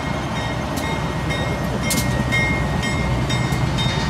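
A Budd RDC rail diesel car running on the track: a steady low diesel and rail rumble with a few scattered sharp clicks, growing slightly louder about two seconds in.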